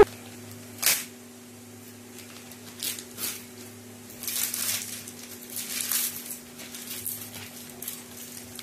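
Grey plastic poly mailer bag crinkling and rustling in irregular bursts as it is pulled and cut open by hand, with a sharp click about a second in. A steady low hum runs underneath.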